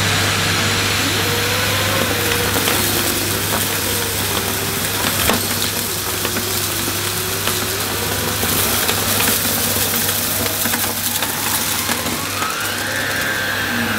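Numatic Henry vacuum cleaner running with its air-driven Airobrush turbo brush pushed across short-pile carpet: a steady motor hum and rush of suction, with a whine that wavers as the brush is loaded by the carpet and rises near the end. The odd click of debris is sucked up.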